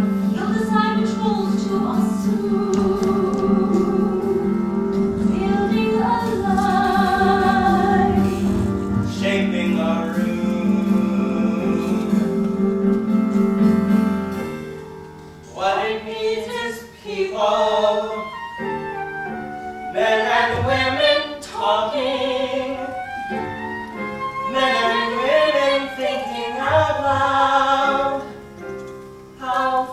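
Live musical-theatre singing with instrumental accompaniment. A low chord is held under the voice for about the first half, then the accompaniment thins out about halfway through and the singing carries on in shorter, shifting phrases.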